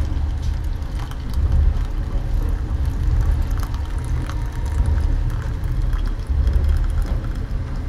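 Hot water running from the tap of a railway carriage's boiler into a plastic mug, under a loud low rumble that swells and fades.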